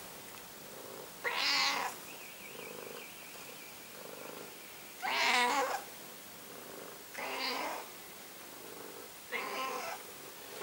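A domestic cat meowing four times, each call lasting under a second, with the second call the loudest.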